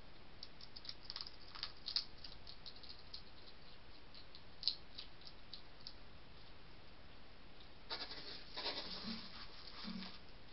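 Wild European hedgehogs moving about on a driveway: scattered small clicks and scratches, then about eight seconds in a denser burst of scuffling and rustling with two short low notes.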